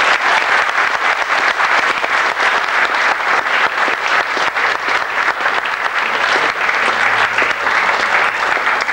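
Wedding guests applauding the newly presented couple: many hands clapping, dense and steady.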